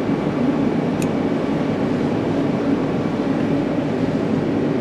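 A machine running with a steady, unchanging drone and a low hum, with a faint click about a second in.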